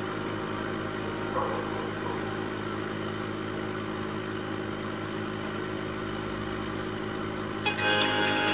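Steady electric motor hum from aquarium equipment such as an air pump, holding one even tone throughout. Near the end, music comes in over it.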